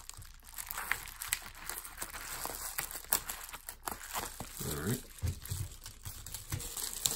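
Plastic bubble-wrap bag crinkling and crackling as it is snipped with scissors and pulled open by hand, many small sharp crackles in quick succession.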